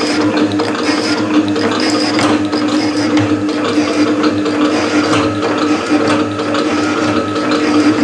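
Metal shaper running, its ram stroking back and forth as it cuts a hot-rolled mild steel bar: a steady mechanical hum with clicking in a regular rhythm.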